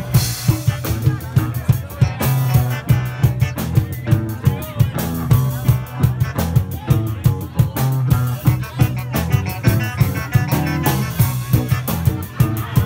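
Live band playing loud, with a drum kit keeping a steady beat over a sustained low bass line.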